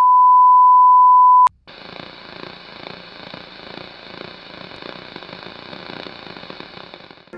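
A steady, high-pitched test tone of the kind that goes with colour bars cuts off with a click about a second and a half in. It is followed by the even hiss of untuned television static.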